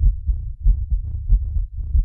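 Deep, low pulsing in a steady rhythm: a strong beat about every two-thirds of a second with weaker pulses between, all in the bass. This is the soundtrack laid over the intro titles.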